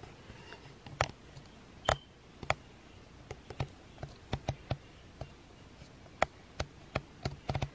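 Small irregular clicks and taps of fingers working the buttons and control dial on a Canon PowerShot G7 X Mark II compact camera while settings are changed, with a short faint beep about two seconds in.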